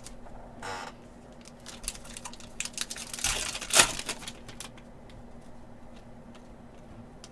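Trading-card pack wrappers and cards being handled: crinkling rustles with scattered light clicks. The loudest rustle comes between about three and four seconds in, then the handling goes quiet, over a faint steady hum.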